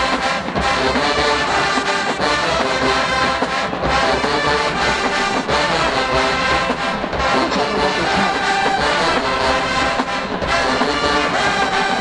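HBCU show-style marching band playing: full brass with sousaphones on the bass line, over snare and bass drums, loud and without a break.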